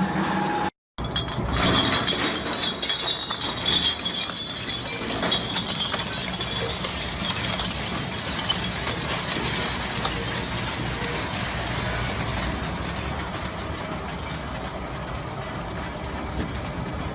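Industrial shredding machine crushing and tearing material, with a dense, continuous crackle of small cracks and clinks.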